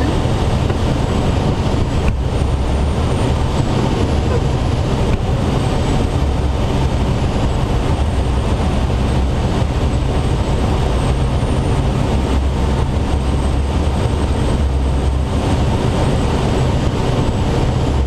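Steady rush of airflow with a low drone inside the cockpit of a Schweizer SGS 2-33A glider on aerotow.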